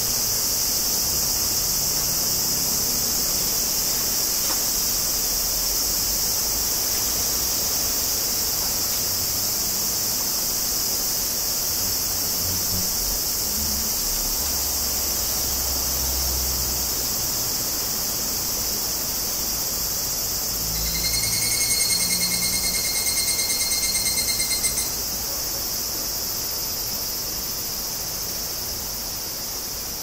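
Chorus of higurashi cicadas (Tanna japonensis) as a steady high-pitched hiss. About two-thirds of the way in, one nearer cicada gives a rapid pulsing call for about four seconds, the loudest sound here.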